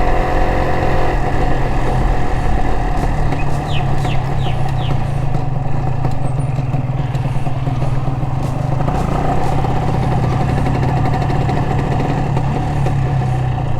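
Honda LS125R's single-cylinder four-stroke engine running steadily under way, heard from the rider's position. About four seconds in there are four short high chirps.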